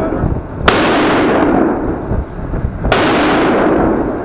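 Two gunshots about two seconds apart inside an indoor firing range. Each crack is followed by about a second of loud echo that dies away.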